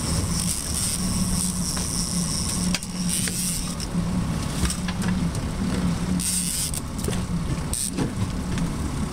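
Boat motor running steadily as a low, even hum, under a hiss of wind and water.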